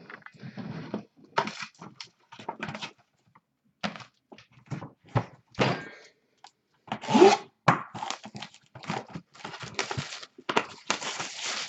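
A box of Flawless football trading cards being handled and opened by hand: irregular rustling, crinkling and tearing of the packaging with short knocks from the box. The loudest rustle comes about seven seconds in, and a dense stretch of tearing fills the last second or so.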